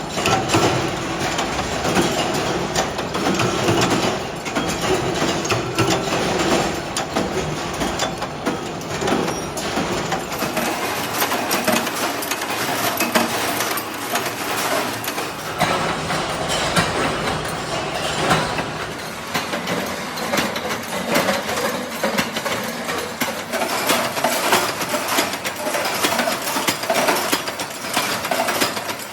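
Factory machinery running with continuous metallic clatter and rapid clicking and knocking of metal parts. The sound changes character about ten seconds in.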